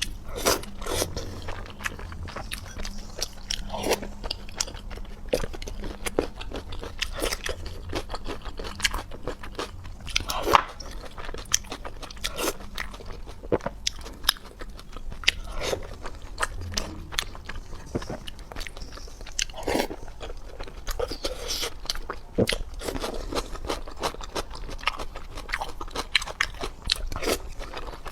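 A person biting and chewing crunchy food close to the microphone, with many irregular crunches and clicks.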